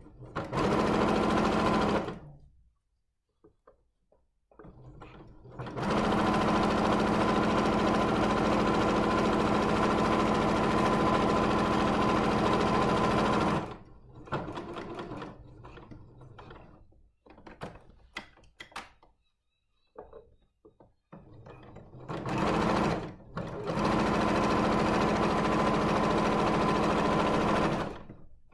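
Electric domestic sewing machine stitching in runs: a short run at the start, a long steady run of about eight seconds, then two more runs near the end. In the pauses between runs there are light clicks and handling noises as the fabric is repositioned.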